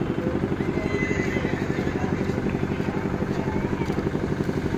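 An engine running steadily at idle with a fast, even throb, and faint voices in the background.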